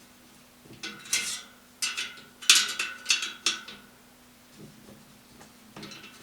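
Small metal bicycle parts or tools clinking, a run of about six sharp clinks with a faint ring in the first half. A few softer knocks come near the end, over a faint steady hum.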